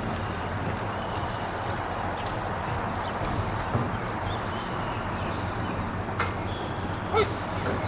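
Steady outdoor background noise, a low rumble and hiss, with faint high chirps scattered through it and a few brief sharp sounds in the second half.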